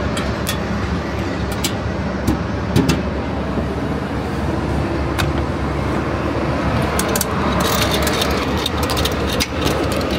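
Steady machinery and engine noise of an airport apron, with scattered sharp metallic clicks and taps from hand tools during the wheel change, and a quick run of clicks about seven seconds in.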